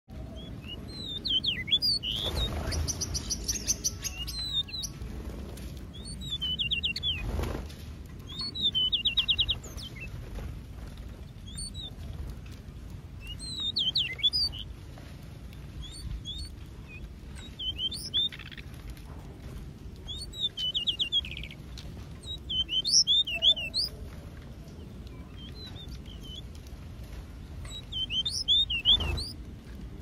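Small finches, Gouldian and zebra finches, chirping and calling in scattered short bursts, now and then breaking into rapid buzzy trills. A few soft low thumps come in among the calls.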